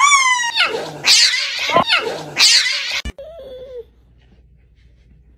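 A cat yowling loudly in several drawn-out, falling cries for about three seconds, then it breaks off abruptly. A faint short whine follows.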